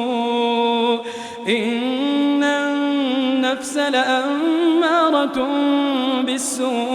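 A male Quran reciter chanting in the drawn-out melodic mujawwad style, holding long notes with ornamented turns and taking a brief breath about a second in.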